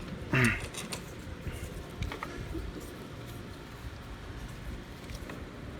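Light clicks and handling noises from small engine parts and hand tools as a mower carburetor is worked loose. About half a second in there is one brief, louder squeak that falls in pitch.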